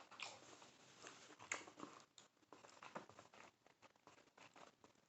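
Faint close-miked chewing of a birria beef taco: soft, irregular wet mouth clicks and smacks.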